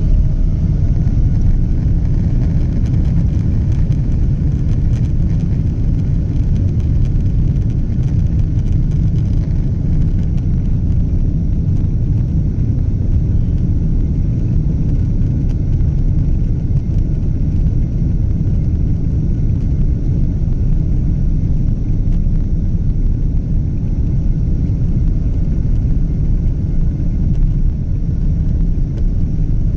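Boeing 777 airliner's engines and rushing air making a steady, loud low rumble, heard from inside the passenger cabin.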